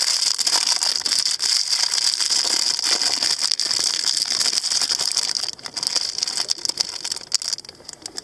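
Metallic foil wrapper crinkling steadily as it is unwrapped by hand, thinning to a few lighter crinkles for the last couple of seconds.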